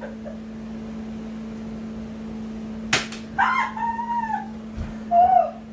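A single sharp snap from a Bug-A-Salt salt-shooting gun fired at close range, about three seconds in, followed at once by loud, drawn-out high-pitched yelps, the second one falling in pitch.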